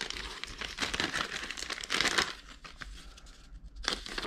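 Clear plastic parts bags crinkling as they are handled and pulled about, in irregular bursts, with a quieter moment about two and a half seconds in before another burst near the end.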